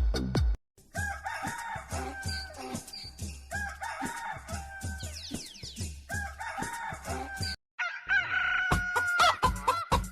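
Novelty alarm ringtone of chicken clucking and rooster crowing over a steady beat, the calls repeating about every two seconds. It breaks off for a moment near the end and a faster beat begins.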